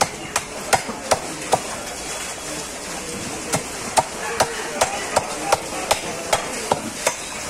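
A large knife driven through a catla fish head by knocks of a wooden baton on the back of the blade, cutting down onto a wooden board. A quick run of five knocks, a pause of about two seconds, then about ten more at a steady two to three a second.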